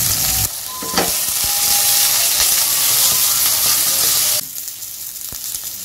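Oil sizzling in a nonstick wok as whole tomatoes, onions, garlic and chillies fry to golden brown for a sauce. The sizzle drops sharply in level twice, and a couple of light knocks come through.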